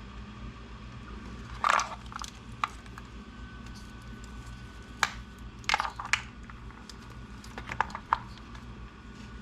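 Small sharp clicks and crinkly rustles of hands handling and fitting RC car wires and plastic parts, coming in a few short clusters over a steady low hum.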